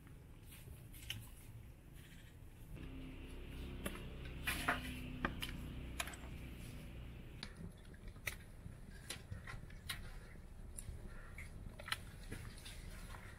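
Pieces of raw lamb being dropped one at a time into a large pot of steaming water, making scattered splashes and clicks over a steady low rumble.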